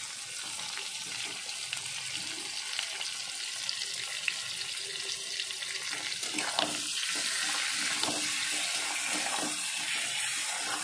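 Potato and pointed gourd pieces frying in oil in a kadai, with tomato and green chillies just added: a steady sizzling hiss with a few light clicks, a little louder in the second half.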